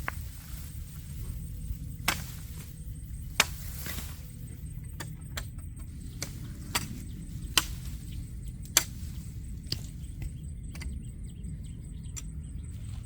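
About a dozen sharp clicks or snaps at uneven intervals, the loudest three coming a little over three seconds in, about seven and a half seconds in and just under nine seconds in, over a steady low rumble.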